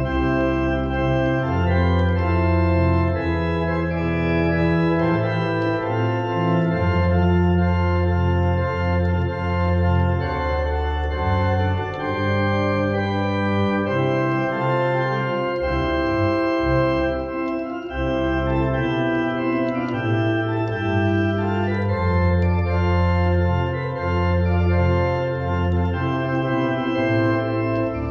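Two-manual church organ playing a hymn in full sustained chords over a deep bass line, the harmony changing every second or two, with brief breaths between phrases.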